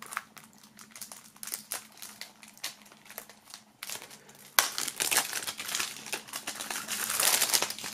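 Plastic shrink-wrap film being slit and peeled off a CD jewel case. Scattered crackles and clicks come first, then steady, louder crinkling from about halfway in as the film is pulled away.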